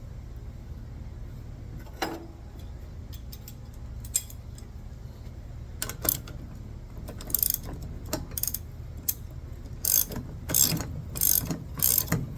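Socket ratchet wrench clicking as a 3/4-inch nut is run down onto the mower's front wheel bolt. Scattered clicks come at first, then about halfway through the clicking settles into quick, regular strokes that grow louder near the end.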